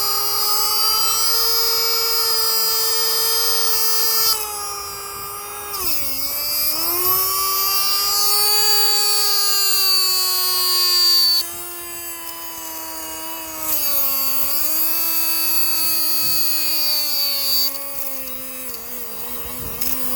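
An 8.5-amp vacuum cleaner motor whining at high speed with its cooling intake blocked, overheating close to burnout. Its pitch sags and recovers twice, then slides steadily lower near the end as the motor starts to fail.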